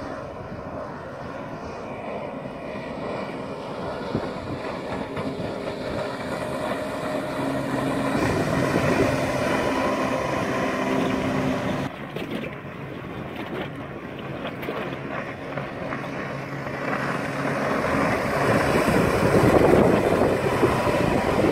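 Mercury 150 hp six-cylinder two-stroke outboard on a rigid inflatable boat running at speed as the boat passes, growing louder as it comes closer. The sound drops sharply about twelve seconds in, then builds again to its loudest near the end as the boat makes a closer pass.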